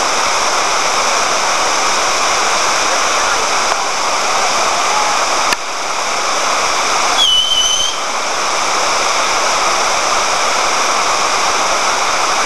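Steady loud rush of water pouring over a low, wide waterfall. A click about five and a half seconds in, and a short high tone just past seven seconds.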